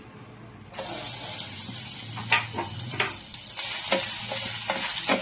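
Crushed garlic and fennel seeds hit hot oil and sizzle loudly, starting suddenly about a second in, while they are stirred in the pan with scattered scrapes and knocks.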